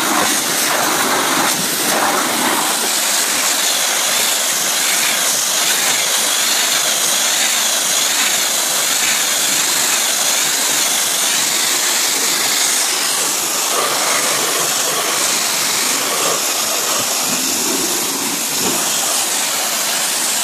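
Pressure washer jet spraying water against a van's side panels, rinsing them off: a loud, steady hiss.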